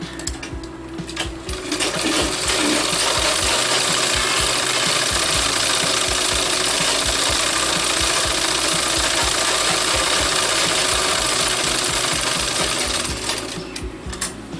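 Sewing machine stitching fabric: quick clicking at first, then about two seconds in it runs fast with a loud, steady, dense noise for some eleven seconds, dropping back to separate clicks near the end.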